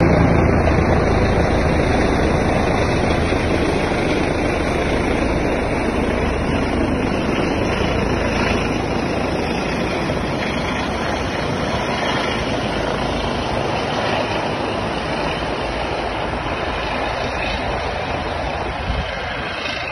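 Helicopter's rotor and turbine noise, steady and loud, fading gradually as it moves off and descends.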